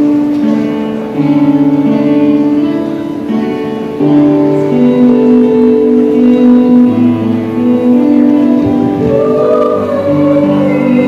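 Choir singing a slow piece in long held chords, with instrumental accompaniment.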